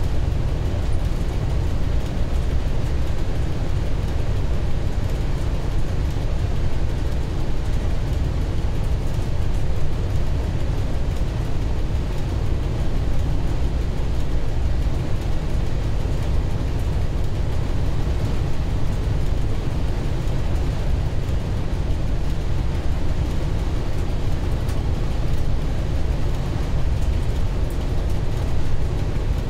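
Steady deep drone inside the cab of an M62 diesel locomotive running light at speed: its two-stroke V12 diesel engine running, mixed with wheel and rail noise.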